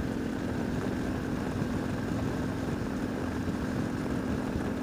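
Motorcycle engine running steadily at cruising speed, a constant drone with one steady tone and road noise beneath it.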